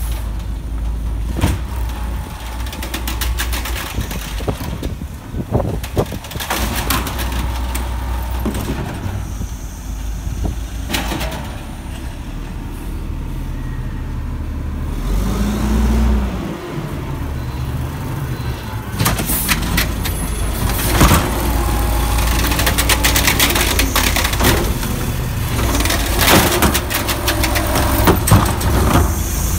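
Mack LE garbage truck with an Amrep Octo automated side-loader arm, its diesel engine running steadily with repeated metal clanks and knocks from the arm and carts. It grows louder and busier in the second half.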